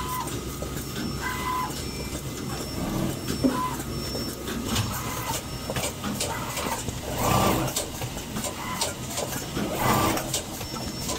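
Automated rotor armature assembly machine running: a steady mechanical hum with frequent small clicks and clatter from its pneumatic actuators and parts handling. A few short beeps sound in the first three seconds, and two louder bursts of noise come about seven and ten seconds in.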